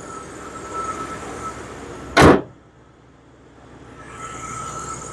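The hood of a 1964 Ford Thunderbird slammed shut once, a single loud bang about two seconds in, over the steady sound of the car's running engine, which is quieter after the hood closes.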